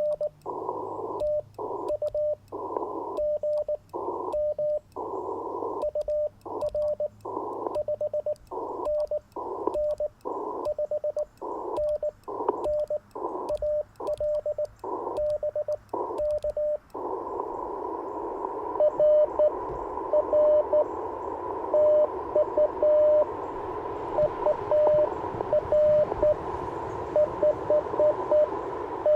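Icom IC-705 transceiver sounding Morse code (CW): a single mid-pitched tone keyed in dits and dahs over band hiss. For the first half the hiss cuts in and out with the keying. From about 17 seconds in the hiss runs steady, and the Morse comes through louder in quicker, shorter elements.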